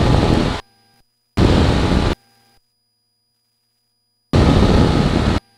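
Three bursts of loud engine and wind noise from a Cessna 172 cabin picked up by the headset microphone, each switching on and off abruptly as the intercom squelch opens and closes, with only a faint electrical whine in the gaps.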